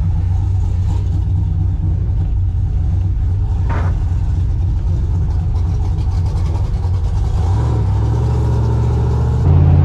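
Cammed 370-cubic-inch LS V8 running at low speed, heard from inside the truck's cab. The note shifts slightly about three-quarters of the way through, and it gets louder just before the end.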